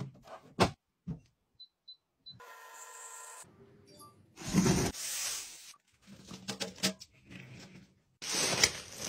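A bottom-loading water dispenser: a few handling clicks, three short high beeps from its touch panel, then its pump humming steadily for about a second. A louder rushing noise follows, water running into a glass. Scattered clicks and knocks come near the end.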